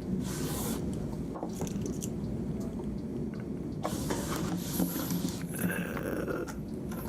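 Small precision screwdriver driving tiny screws back into an iPhone 5S's internals: light clicks and scraping of the metal bit in the screw heads.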